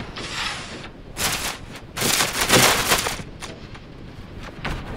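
Crackling, rustling handling noise from a phone being moved about close to its microphone, possibly with fur brushing against it. It comes in uneven bursts, the longest and loudest about two to three seconds in.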